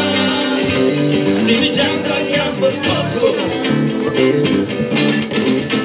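Live busker band playing: strummed acoustic guitar and a bass line with a hand shaker keeping the beat, mostly instrumental with little singing.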